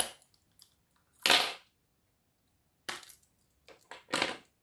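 Plastic housing and metal spring clip of a Noark fuse separator being pulled apart by hand. A sharp click comes first, then three short clinking, scraping bursts as the clip is worked loose from the plastic.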